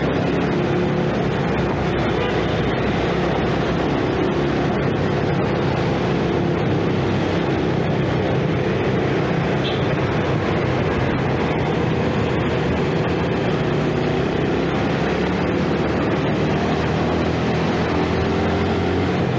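2012 Yamaha Jupiter Z 115cc single-cylinder four-stroke underbone engine running steadily under way, heard from the bike with road and wind noise. The engine pitch rises slightly near the end.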